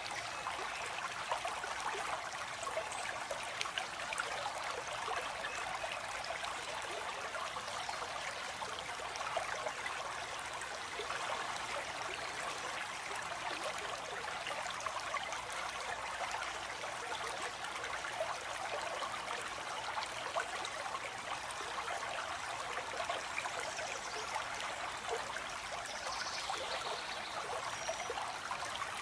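Flowing stream water running steadily, with a faint bird call or two high above it near the end.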